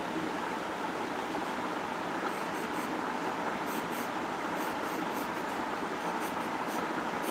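Pencil sketching on paper: short scratchy strokes, more frequent from about two seconds in, over a steady background noise.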